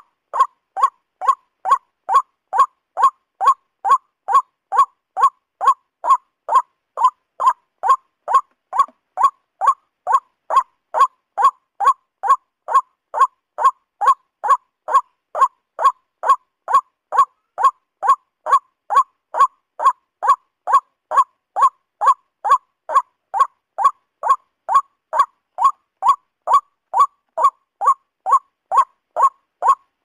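Male white-breasted waterhen (ruak-ruak) calling: short, alike notes at a steady pace of about two a second, on and on without a break.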